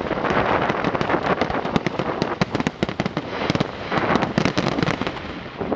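Fireworks display: a dense, rapid crackle of sharp pops from many shells and crackling effects, with a few heavier, fuller bursts swelling up about half a second in, around two seconds in and around four seconds in.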